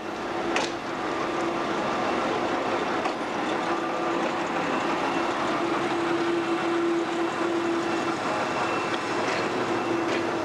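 Lxd2 narrow-gauge diesel-hydraulic locomotive running steadily as it moves slowly past at close range, its engine giving an even hum with a held tone. A single sharp click about half a second in.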